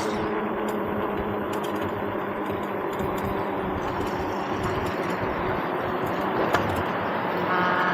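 Steady running noise of a small ridden vehicle's motor with road and wind noise, and a short pitched sound near the end.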